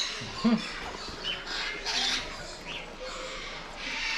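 Birds calling in an aviary: a few short, separate chirps and squawks over a steady background hum.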